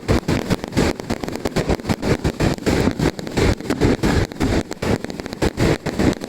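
Fireworks going off in a rapid barrage, with several sharp bangs and crackles a second overlapping one another.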